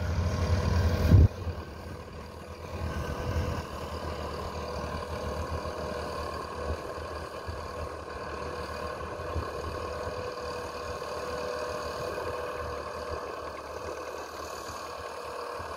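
Massey Ferguson 375 tractor's Perkins diesel engine running steadily under load, pulling an implement through a flooded field to puddle it. For about the first second a louder low rumble plays, then cuts off suddenly.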